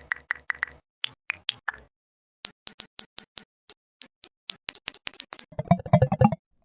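A rapid series of short, sharp clicks and plopping blips with dead silence between them, quickening towards the middle, then a denser cluster of louder, lower thumps before it stops abruptly about six seconds in.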